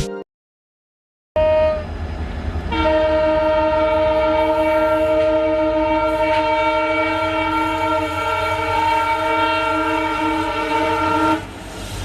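A horn sounding one long blast: several steady notes held together as a chord for about nine seconds over a low rumble, starting about a second in and cutting off near the end.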